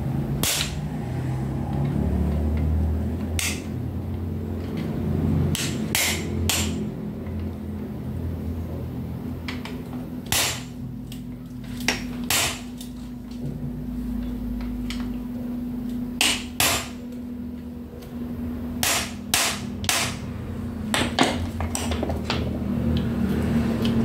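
Hammer striking the end of a screwdriver held against a small electric motor, using it as a punch: about a dozen sharp knocks at uneven intervals, some in quick pairs or triplets, over a low steady hum.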